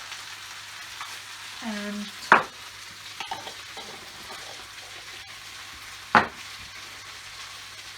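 Stir-fried noodles sizzling steadily in a hot pan as they are stirred, with two sharp knocks of the utensil against the pan, about four seconds apart.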